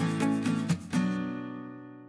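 Background music with strummed guitar chords; the last chord, struck about a second in, rings on and fades out.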